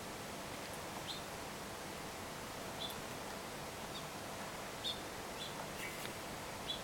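Cockatiel giving short, high chirps, about one a second, over a steady faint background hiss.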